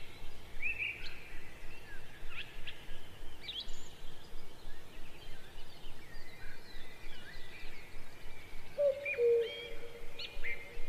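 Birds chirping in short rising notes, joined near the end by a lower two-note call repeated twice.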